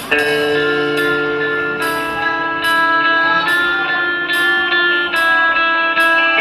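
A rock band playing an instrumental opening live, with held electric guitar and keyboard chords and a cymbal struck about every 0.8 seconds.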